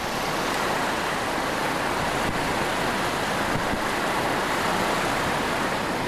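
Strong wind of about 20 mph rushing around a spinning vertical-axis wind turbine rotor, loaded while charging batteries: a steady whooshing noise with no distinct hum or knocks.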